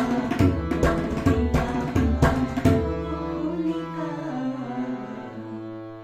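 Tabla and harmonium playing the closing bars of a song. The tabla's last strokes fall about two and a half seconds in, then the harmonium holds its final notes, which fade away.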